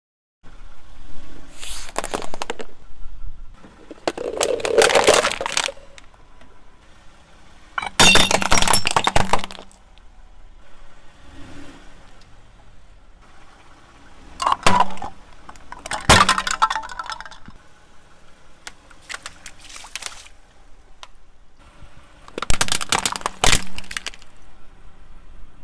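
A car tyre rolling over and crushing plastic toys and water beads on asphalt: about six separate bouts of cracking, crunching and snapping plastic, with quieter crackle between them.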